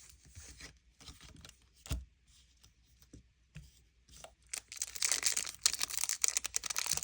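Pokémon trading cards and their foil booster wrapper being handled. A few light clicks for the first half, then steady crinkly rustling from about halfway.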